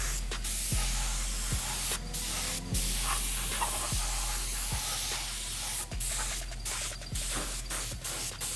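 Background music with a steady deep kick-drum beat, under a loud steady hiss.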